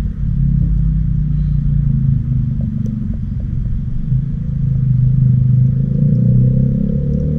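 A loud low rumble with steady low droning tones, with a further higher tone joining near the end.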